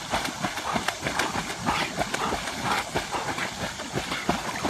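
A dog's claws clicking and scrabbling on a hard surface: many quick, irregular taps over a steady hiss, cutting off near the end.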